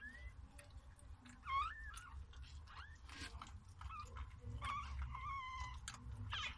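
Newborn puppies squeaking and mewing: short, high cries that rise and fall in pitch, with a longer wavering run of them past the middle.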